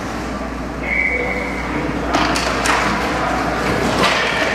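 Ice hockey play in an indoor rink: sticks, puck and skates on the ice. Several sharp clacks and knocks come from about two seconds in and again near the end, over steady rink and crowd noise, with a brief high tone about a second in.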